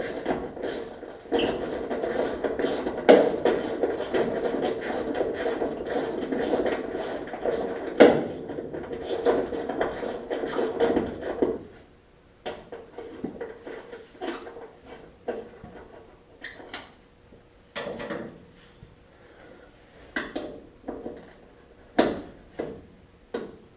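Tools at work unbolting a car's trunk lid: about ten seconds of dense, rapid clicking and rattling, then scattered metal clicks and knocks.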